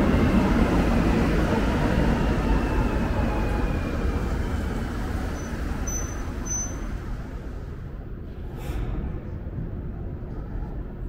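Montreal Metro Azur rubber-tyred train running, its faint motor whine sliding down in pitch as the rumble fades. A short hiss comes about eight and a half seconds in.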